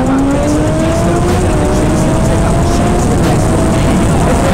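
Sport motorcycle engine under hard acceleration, its pitch climbing, dipping at an upshift about a second and a half in and again near three seconds, then climbing again. Heavy wind rush on the helmet-mounted microphone underneath.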